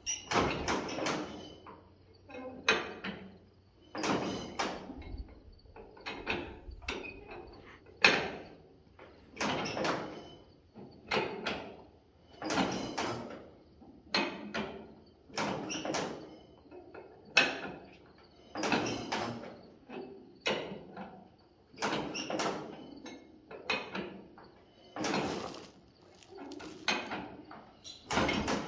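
Hart-Parr 18-36 two-cylinder tractor engine being turned over by hand without firing: an irregular series of sharp clunks, each followed by a short hiss, about one to two a second. The owner puts its failure to start down to very low compression.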